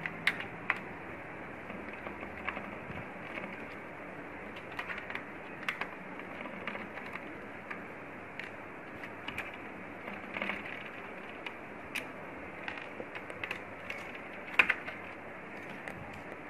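Scattered light clicks and taps of small metal and plastic parts being handled and unscrewed inside an opened projector, over a steady hiss, with one sharper click near the end.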